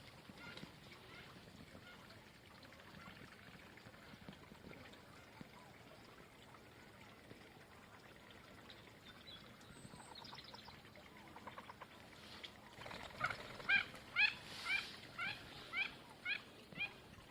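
Ducks quacking: faint calls at first, then a run of about ten loud quacks, roughly two a second, starting about 13 seconds in, loudest at the start of the run and fading toward the end.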